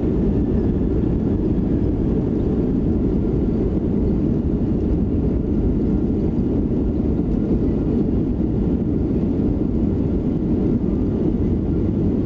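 Steady low rumble of engine and airflow noise inside the cabin of a Boeing 737-900 airliner, even and unchanging throughout.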